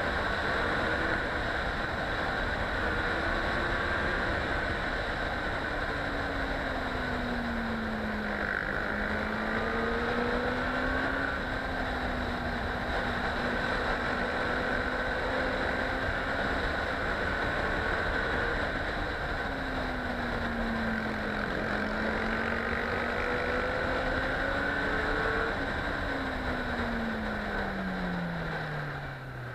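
Motorcycle engine running hard through the bends, its pitch rising and falling again and again with throttle and gear changes, under a steady rush of wind on the helmet-mounted microphone. Near the end the revs fall steadily as the bike slows.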